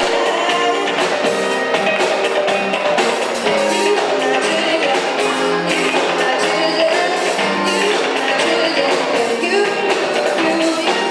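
A live school band playing a pop-rock song with sung vocals, guitar among the instruments.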